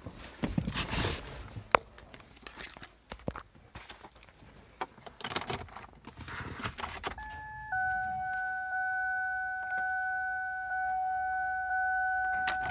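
Keys rattling and clicks of handling, then about seven seconds in a steady electronic buzzer tone sounds from a machine that won't start. The tone steps slightly lower in pitch half a second later and holds.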